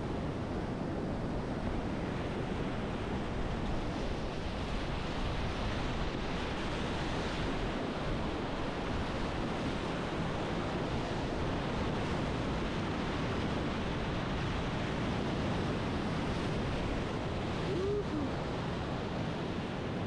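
Rushing whitewater of river rapids: a steady, even wash of water noise, with a brief faint chirp near the end.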